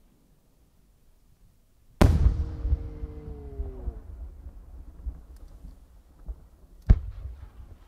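Aerial firework shell bursting with one sharp bang about two seconds in, followed by a long rumbling echo that dies away. A second, shorter bang comes near the end.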